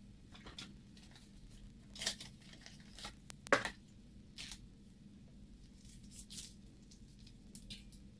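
A string of short rustles and scrapes from hands working a bicycle tyre and inner tube, a few strokes a second apart, the loudest about three and a half seconds in.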